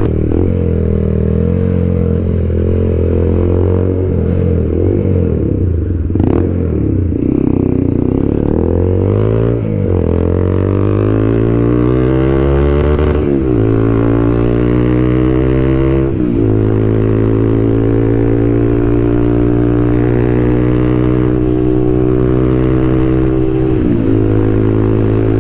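TVS Apache RTR 200 4V's single-cylinder engine through a full-system SC Project aftermarket exhaust, under way. The note is very loud and bassy. Its pitch rises and falls with the throttle, climbs steeply and drops back sharply a few times in the second half, then holds steady.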